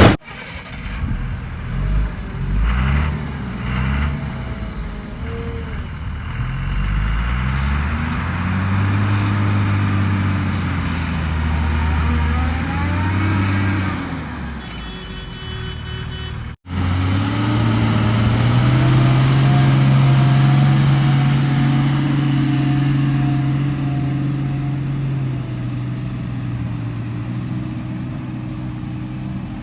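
Heavy diesel vehicle engines driving, revving up and down, then running more steadily after a sudden break about halfway through.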